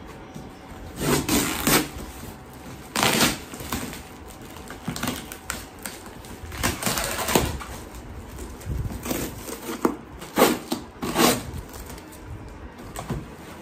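Brown packing tape being picked at and torn off a cardboard parcel by hand: a run of short ripping and scraping bursts at uneven intervals, with the cardboard rustling.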